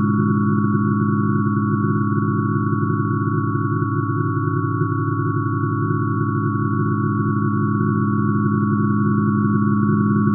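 Synthesized hydrogen spectrum: hydrogen's emission-line frequencies shifted down many octaves into hearing range and played as pure sine tones. It is a low cluster of tones with two higher tones above, held steady without change.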